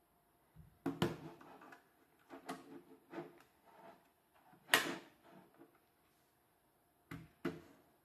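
A Keychron C1 mechanical keyboard being handled and set down on a wooden desk: a few irregular knocks and clatters, the loudest a little before the middle, then two short knocks near the end.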